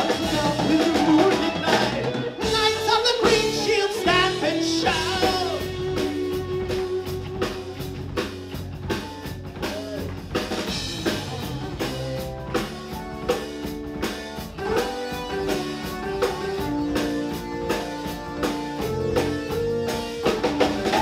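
Live progressive rock band playing an instrumental passage: electric guitar and keyboard lines over drum kit and bass.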